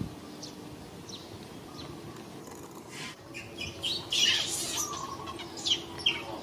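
High-pitched animal calls: a series of short, falling chirps, with a louder, harsher squeal about four seconds in and two sharp chirps near the end.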